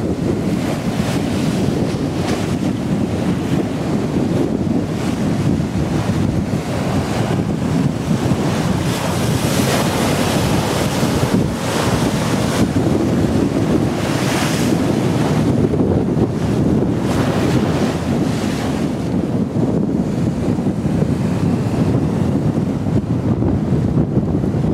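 Strong wind buffeting the microphone in gusts, over choppy river water washing and slapping.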